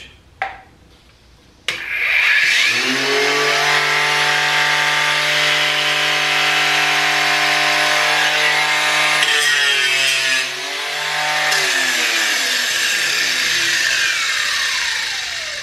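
A 20-volt brushless cordless 4.5-inch angle grinder is switched on and spins up quickly, then runs steadily at full speed with no load. About ten seconds in it briefly slows and picks up again. It is then switched off and winds down with a falling whine.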